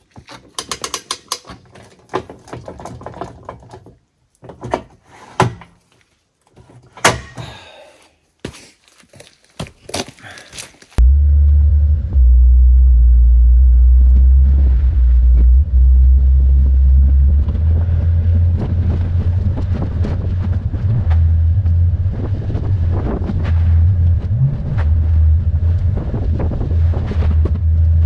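Scattered metal knocks and clicks of a boat trailer's tongue jack and hitch being worked. About eleven seconds in, this switches to a loud, steady low rumble of wind buffeting the microphone and road noise as the trailer is towed down a gravel road.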